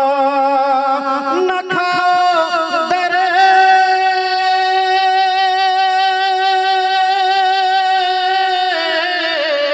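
Male naat reciter singing without accompaniment, drawing out a wordless melisma. The notes waver with vibrato, the pitch steps up about a second and a half in, and one long note is held steadily for about five seconds before the voice falls back down near the end.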